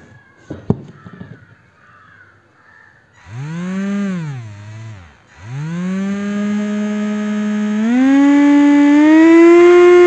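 Small 180-size brushed DC motor whining as its speed is varied from a joystick through an Arduino and speed controller: the whine starts up, rises and falls, dies out about five seconds in, then spins up again and steps higher in pitch twice near the end. A single click just under a second in.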